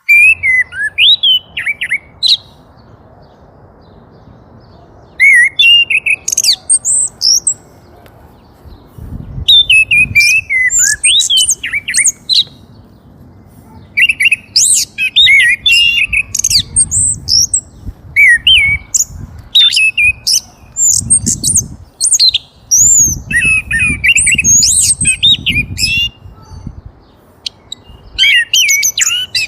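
A bird chirping and squawking in bursts of quick, jumping high calls, several seconds of calling at a time with short pauses between.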